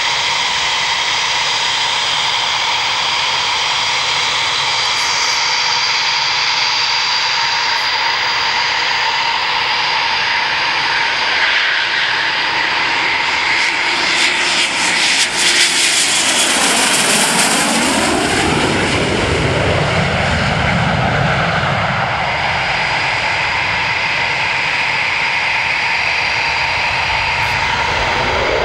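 Eurofighter Typhoon's twin EJ200 turbofan engines on landing approach, a steady high whine growing as it comes in. About halfway through it passes close overhead with a sweeping, phasing sound, then a deeper rumble follows as it moves away.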